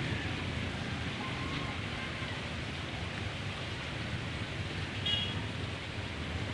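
Steady outdoor background noise, an even rush with no clear source, and a short high chirp about five seconds in.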